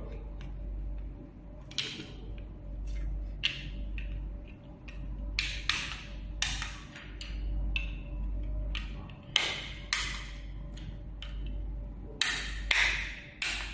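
Small plastic clicks and taps as a handheld plastic LED controller panel is handled and its cover fitted back on: about a dozen irregular sharp clicks, with a steady low hum underneath.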